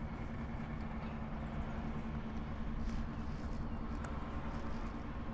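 Steady low background rumble with a constant hum, and a couple of faint ticks about three and four seconds in.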